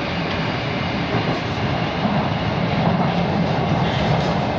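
Moscow Metro 81-765 'Moskva' train heard from inside the car as it pulls out of a station into the tunnel: steady running noise of wheels and traction motors, growing a little louder about halfway through.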